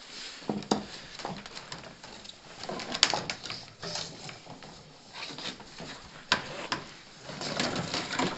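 Blue plastic water pipe being handled and fed between wooden floor joists: irregular scraping and rustling with scattered knocks and clicks, two sharp clacks about 3 s and 6 s in.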